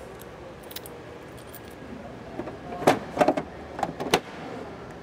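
A ring of keys jangling in the hand, then a run of sharp clicks and knocks, loudest about three to four seconds in, as a small hinged service-compartment door on the side of a van is swung shut and latched.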